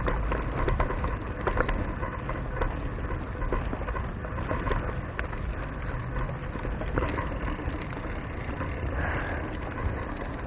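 Mountain bike rolling over a dirt trail, heard close on the rider: a steady low rumble of tyres and wind on the microphone, with scattered clicks and rattles from the bike.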